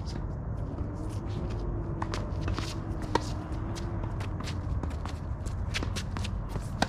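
Footsteps and shoe scuffs on a hard tennis court, with two sharper knocks about three and a half seconds apart, over a steady low rumble.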